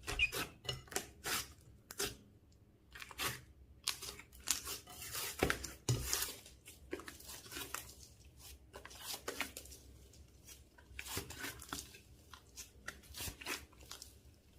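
Slime being worked by hand, with irregular bursts of sticky crackling and squishing as it is stretched and pressed. The sounds come in short clusters and are loudest about halfway through.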